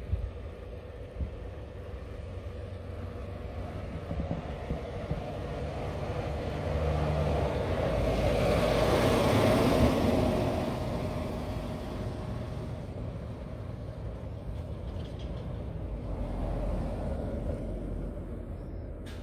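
A vehicle drives past on a snow-covered street; its engine and tyre noise swell to a peak about halfway through and fade away. A second, quieter vehicle passes near the end.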